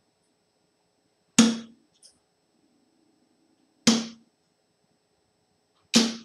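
Three darts striking a dartboard one after another, each a sharp thud with a short low ring, about two to two and a half seconds apart.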